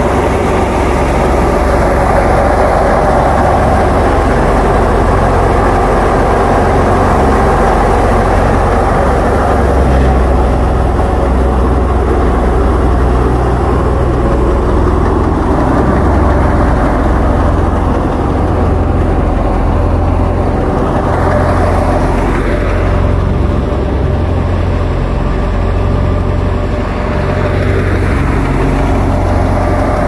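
Wheat thresher running while sheaves of wheat are fed into it: a loud, steady mechanical din with a low engine hum beneath.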